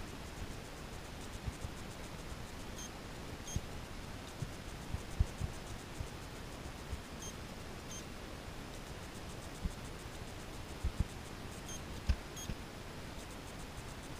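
Short high electronic beeps in pairs, about a second apart, repeating three times at intervals of about four and a half seconds, over a steady hiss. A few soft low thumps fall between them.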